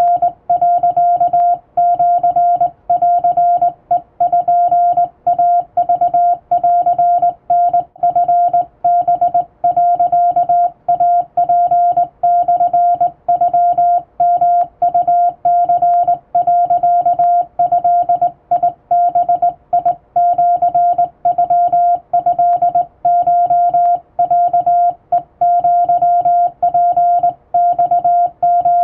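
Morse code sent by hand on a vertical straight key, heard as a single-pitched beep keyed on and off in short dots and longer dashes: Japanese Wabun code.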